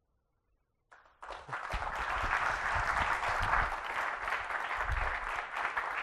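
Audience applauding, starting suddenly about a second in after near silence.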